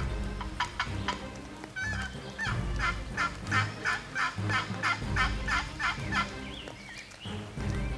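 Turkey calling: a long series of sharp, evenly repeated notes, about three a second, strongest through the middle and stopping a little after six seconds in.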